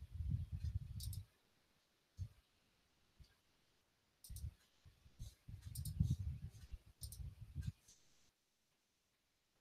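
Faint clicking and low thumps in several short clusters, as of a computer mouse and desk being handled close to a headset microphone, ending in a brief silence.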